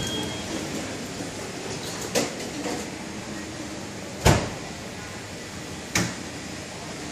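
Three short knocks, a second or two apart, the middle one the loudest and a dull thump, over steady indoor room noise.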